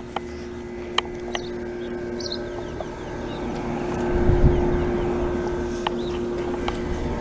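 Steady hum of running outdoor heat pump units, with a rushing noise that swells about four seconds in and eases off. A few sharp clicks and faint high chirps sound over it.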